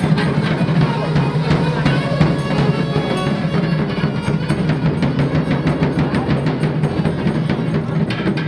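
Music with drums and percussion, playing without a break.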